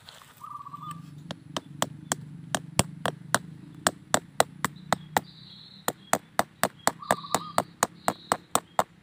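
A long, even run of sharp taps, about four a second, with a short pause midway. A low hum sits underneath for the first half, and a short bird trill sounds twice.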